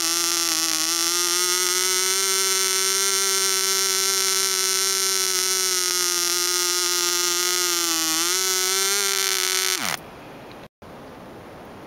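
AE 0.1cc model diesel engine, a tiny two-stroke compression-ignition engine, running at high revs with a steady high-pitched buzz. Its pitch sags briefly about eight seconds in and recovers. Then the revs fall away sharply and the engine stops near the end.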